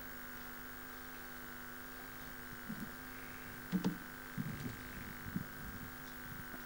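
Steady electrical mains hum from the sound system, with a few faint, brief low sounds between about three and five and a half seconds in.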